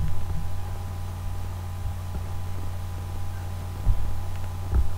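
A steady low hum, with a few short soft thumps near the start and again near the end.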